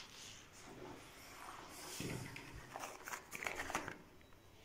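Faint rustling with a few light ticks and scrapes, the kind of handling noise made by a hand or a phone moving near the blinds, mostly in the second half.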